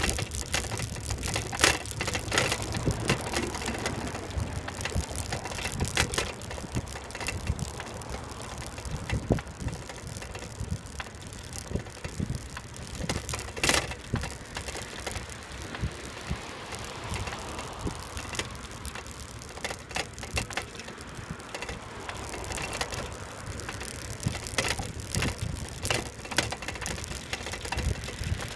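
Bicycle rattling and knocking as it rolls over a paved path, with a low rumble and many irregular sharp clicks from bumps.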